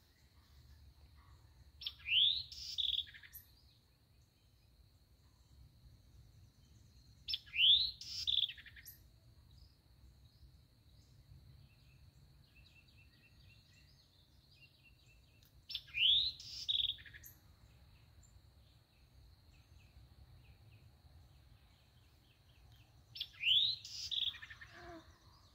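A songbird singing the same short phrase four times, several seconds apart, each about a second long and opening with a quick rising whistle. A faint steady high-pitched tone runs underneath.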